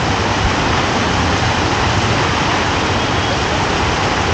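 Heavy rain falling steadily: a dense, unbroken hiss.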